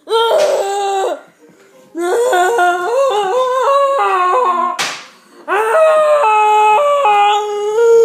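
A person's high-pitched wordless vocalizing: long wailing notes that step up and down in pitch, in three stretches with short breaks. There is one sharp slap about five seconds in.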